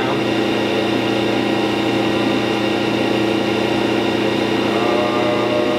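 Landis 3RH universal cylindrical grinder running with its grinding wheel spinning: a steady machine hum with several constant tones.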